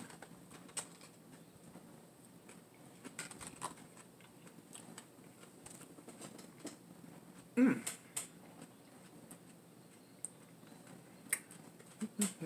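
Quiet room with faint, scattered light clicks of a fork against a dish as a person eats, and one short hummed vocal sound about eight seconds in.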